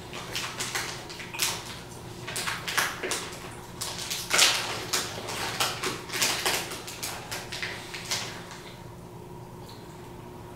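Irregular sharp clicks, taps and rustles, dense for about eight seconds and then stopping, over a faint steady hum.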